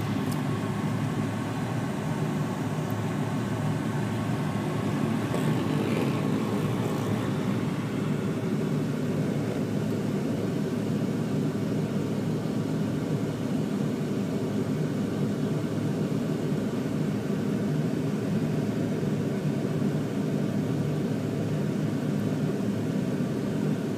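Steady low engine hum at a constant speed, with no revving or pauses.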